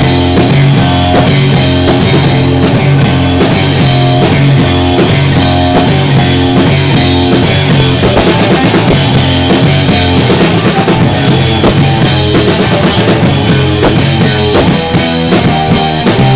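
A rock band playing loudly together: drum kit, bass and guitar in a continuous full-band passage.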